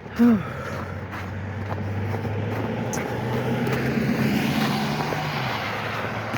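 A motor vehicle passing on the road, a low engine hum and tyre noise swelling to a peak about four to five seconds in and then easing off.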